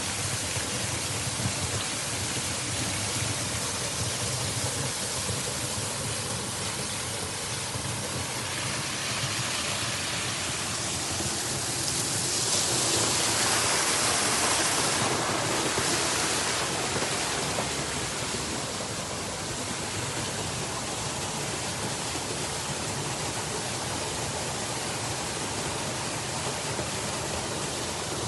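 Water pouring and splashing steadily into a pool, a constant rush that grows louder for a few seconds around the middle.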